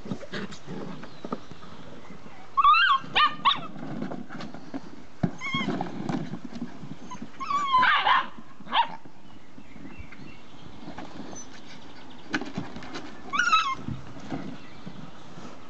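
Six-week-old Old English Sheepdog puppies giving short, high-pitched yips and squeaky barks in little runs: about three seconds in, around six and eight seconds, and again near the end. Between them come light clicks and rustling, fitting plastic ball-pit balls being knocked about.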